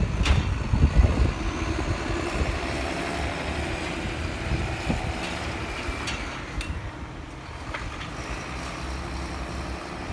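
Tractor engine running steadily while it works the hydraulics to tip a silage trailer, loudest in the first second or two. There are a few short knocks through it.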